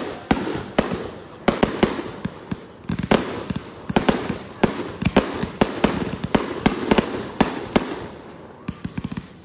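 Fireworks display: a rapid, irregular string of shell bursts and sharp bangs, several a second, with a quick run of smaller cracks near the end.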